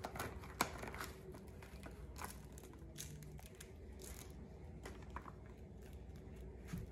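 Faint, scattered crinkling and small clicks of hands picking sticky Orb Molecules foam beads apart in a plastic tray.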